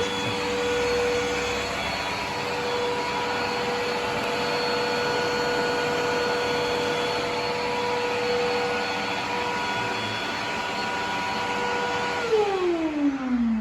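Zepter vacuum cleaner running with a steady motor whine, then switched off about twelve seconds in, its motor spinning down in a falling whine.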